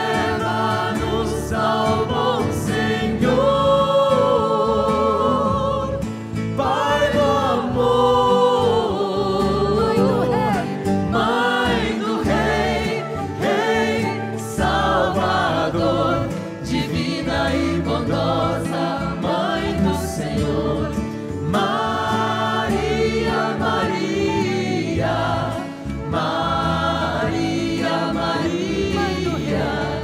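Choir and congregation singing a devotional hymn to Mary.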